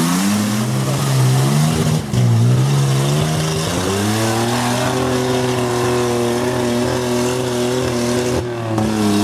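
Engine of a roll-caged off-road 4x4 working under load as it climbs out of a mud hole and up a muddy bank. The revs rise and fall for the first few seconds, climb steeply about four seconds in, and then hold steady, with a brief dip near the end.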